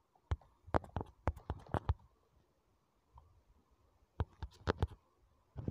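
Quick clicks of typing on a smartphone's on-screen keyboard: a run of taps in the first two seconds, a pause, then a few more taps about four seconds in.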